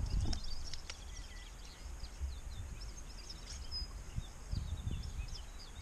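Small birds chirping and singing in the background, many short high notes and slides, over a low steady rumble with a few faint clicks.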